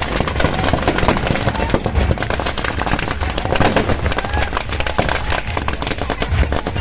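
Firecrackers packed into a burning Ravan effigy going off in a rapid, continuous crackle of sharp pops.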